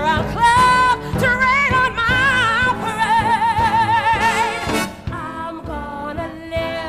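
A woman belting a show tune over a live orchestra, holding long notes with a wide vibrato; about five seconds in the music drops quieter.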